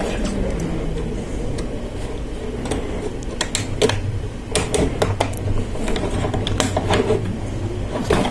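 LEGO Technic plastic parts being handled and pressed together by hand: a run of small sharp clicks and snaps, over a steady low hum.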